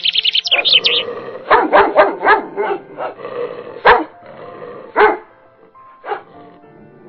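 A dog barking outdoors: a quick run of about five barks, then single barks about a second apart. A rapid high chirping fills the first second.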